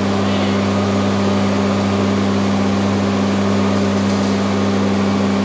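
A machine running with a steady, unchanging hum.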